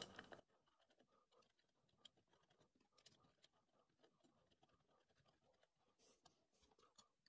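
Near silence, with faint scattered small clicks and ticks from bolts being handled and threaded by hand to attach an end plate to an aluminium extrusion.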